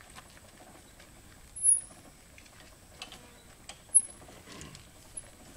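Hand crank of the Model T railcar's jack being worked, giving short, high-pitched metallic squeaks about every two seconds with light clicks between them.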